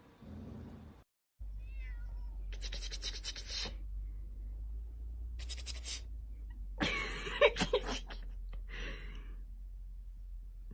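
Domestic cat vocalising in several short, noisy bursts over a low steady hum, with a few sharp knocks about seven seconds in.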